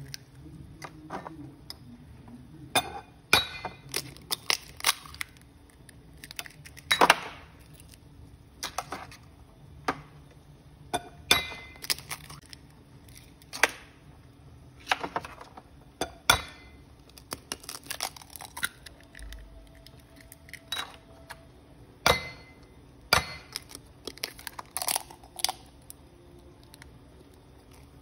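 Eggs being cracked into a bowl: scattered sharp taps and clinks of shells knocking on the bowl's rim and breaking open, a few of them louder knocks.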